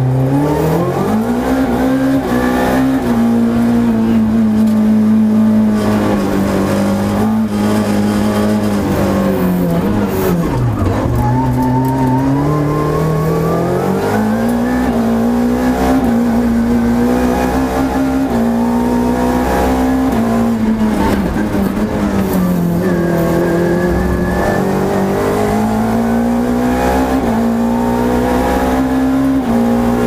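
Renault Clio FA7 rally car's engine running hard, heard from inside the cabin. The revs hold high, drop steeply about ten seconds in and again around twenty-one seconds as the car slows, then climb back each time under acceleration.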